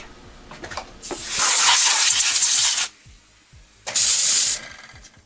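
Compressed air hissing in two sharp-edged bursts, the first about a second and a half long, the second shorter, at a milling machine with chips on the vise.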